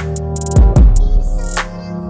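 Electronic background music: a drum-machine beat with deep kick drums and short high hits over held synth notes.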